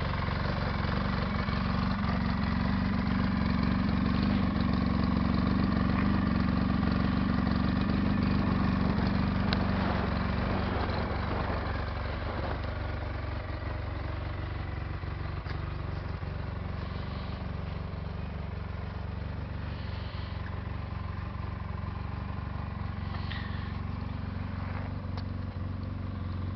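An engine idling steadily, a low even hum that is louder for about the first ten seconds and then settles a little quieter.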